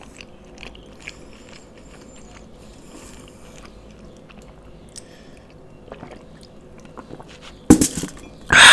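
A quiet stretch of faint mouth and handling sounds while a drink is taken from a glass. Near the end comes a sharp knock as the glass is set back down on the table, then a short, loud breathy burst.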